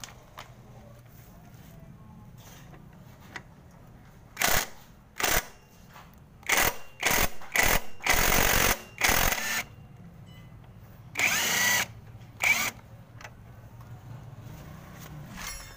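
OKS impact wrench driving a 14 mm socket on a motorcycle's front axle nut, fired in about ten short trigger bursts of hammering. The longest lasts about a second, and in one burst near the end the motor's pitch rises and falls.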